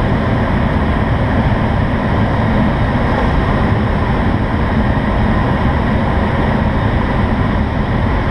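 Steady rush of airflow around the cockpit of an IS-28B2 two-seat glider in flight, a loud, even wind noise with a heavy low rumble.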